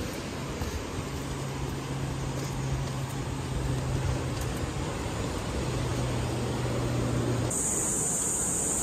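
Steady rushing noise of wind on the microphone, with a faint low steady hum under it through the middle; the sound changes abruptly near the end.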